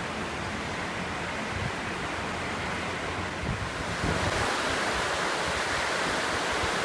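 Steady rushing of the Smith River in flood, fast muddy water churning around rocks, with wind buffeting the microphone. It gets a little louder about four seconds in.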